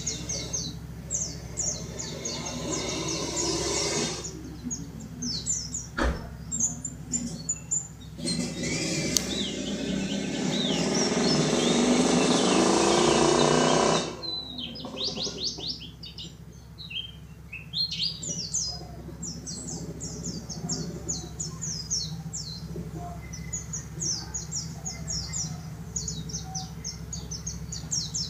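White-eye (pleci dakun) singing a fast, high twittering song of rapid short chirps. A loud rushing noise swells up about eight seconds in, partly covering the song, and cuts off suddenly about six seconds later; there is one sharp click a few seconds before it.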